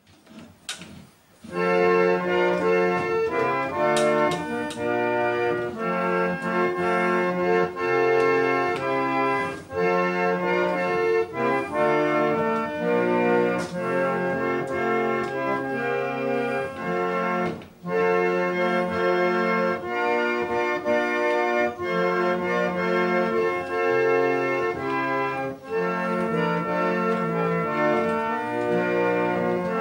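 Antique pump organ (a foot-pumped reed organ) playing held chords, starting about a second and a half in, with two brief breaks between phrases.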